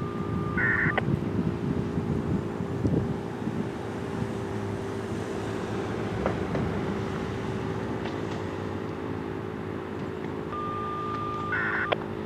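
Federal Signal STH-10 rotating outdoor warning siren sounding its Alert signal: one continuous steady tone.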